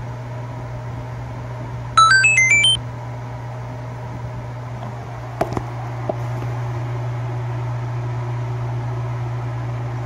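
Drill-driven wire stripping machine running steadily with a low hum as it strips copper wire. About two seconds in, a quick run of electronic beeps at changing pitches lasts under a second and is the loudest sound. A few sharp clicks follow a few seconds later.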